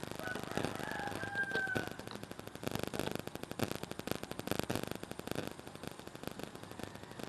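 A rooster crows once in the first two seconds, one call that falls at its end. Then comes a rapid run of clicking for about three seconds as a screwdriver turns a screw in the fan motor's metal end housing.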